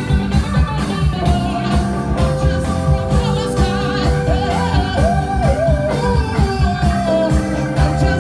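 Live band playing: a male singer's voice over electric bass, drums and keyboard, with a run of notes bending up and down in the middle.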